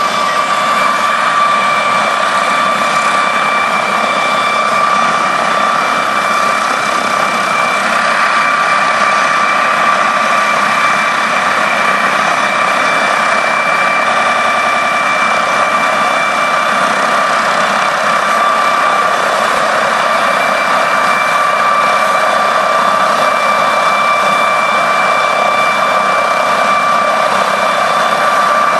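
MD 902 Explorer helicopter's twin turboshaft engines running on the ground, a loud steady turbine whine over the rush of the turning rotor.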